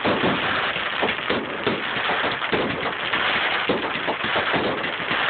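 Fireworks crackling: a dense, continuous rain-like crackle of many small pops from bursting stars and their sparkling trails, with a few sharper bangs standing out.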